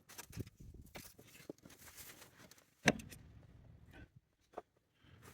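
Scattered handling knocks and clinks, with one sharp clunk about three seconds in, from work at the oil tank's drain plug.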